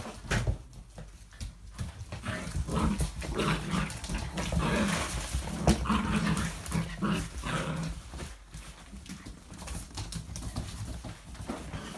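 Seven-week-old puppies play-fighting on a wooden floor: small growls and whimpers mixed with the scrabble and patter of paws and claws, coming and going in short irregular bursts.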